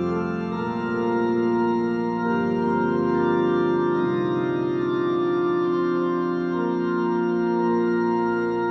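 Electronic keyboard playing sustained organ-voice chords that change about every two seconds.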